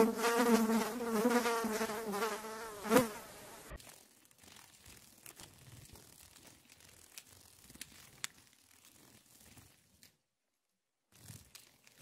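A bee buzzing in flight: a pitched hum that wavers up and down, cutting off abruptly about four seconds in. After it, only faint scattered ticks and rustles.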